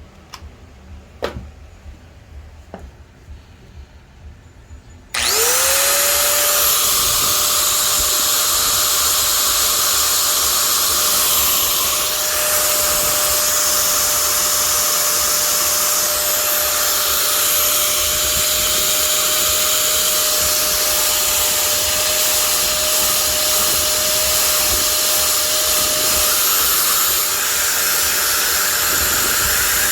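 An electric power tool motor switched on about five seconds in, after a few light clicks, spinning up quickly to a steady whine and running on.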